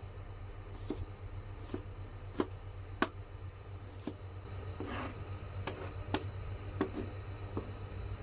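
Kitchen knife mincing garlic on a plastic cutting board: about ten sharp, irregularly spaced knocks of the blade on the board. A steady low hum runs underneath.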